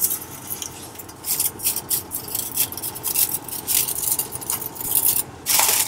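Aluminium foil crinkling and rustling as it is pulled open with metal kitchen tongs, with light clicks of the tongs against the metal baking pan.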